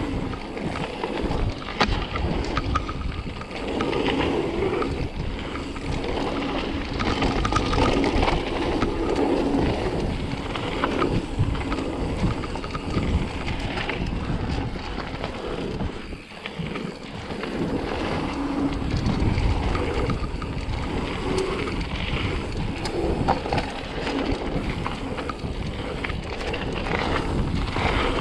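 Mountain bike riding down a dirt trail: continuous tyre noise and rattling of the bike over rough ground, with wind on the microphone.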